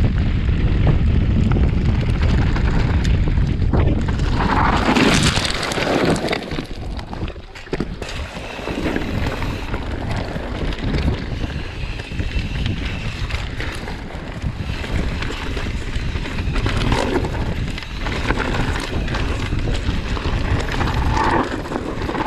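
Wind buffeting the camera microphone over the rumble and rattle of a mountain bike riding fast down a rough dirt trail, with a brief louder rush about five seconds in.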